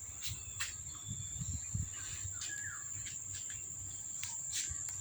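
A steady high-pitched insect trill, with scattered short clicks and a few soft low thumps.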